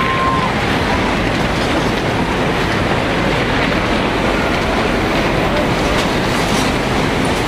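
Surging floodwater rushing and churning, a loud, steady noise without a break.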